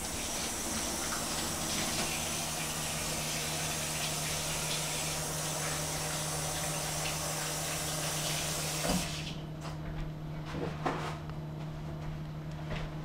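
Kitchen sink faucet running as hands are washed, shut off about nine seconds in, followed by a few light knocks and clicks.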